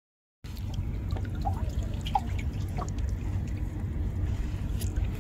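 Water dripping and trickling off a fishing net as it is hauled out of the river into a wooden boat, with scattered small drips and ticks over a steady low rumble.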